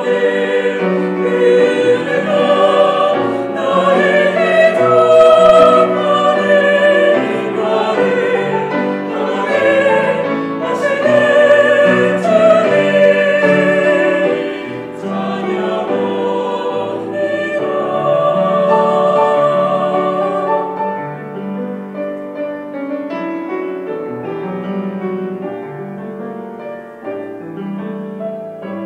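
Small mixed church choir singing a Korean worship song with grand piano accompaniment. About two-thirds of the way through the voices stop and the piano plays on alone, more quietly.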